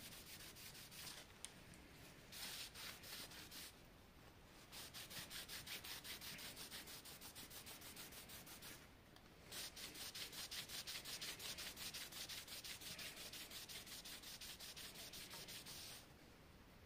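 Cloth rag wiping back and forth along a narrow steel thickness-planer knife, cleaning it with solvent: a faint, fast run of rubbing strokes, pausing briefly twice.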